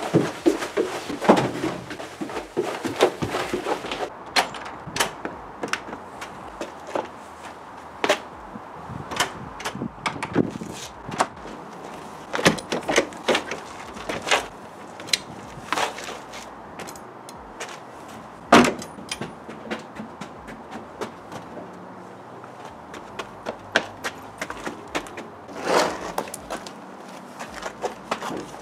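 Irregular knocks, thumps and footsteps as a door is kicked and pushed with a foot instead of a hand, with one louder knock about two-thirds of the way through.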